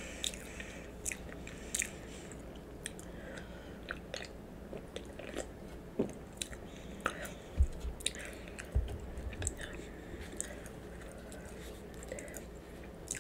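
A person chewing a mouthful of food, with many small scattered mouth clicks. There are two soft low thumps about halfway through.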